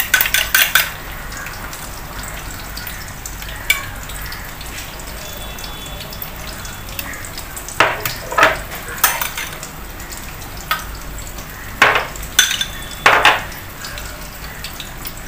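Chicken patties sizzling steadily as they fry in oil. A spoon clinks against a glass bowl in the first second, and a knife scrapes and clinks a few times later while spreading sauce on buns.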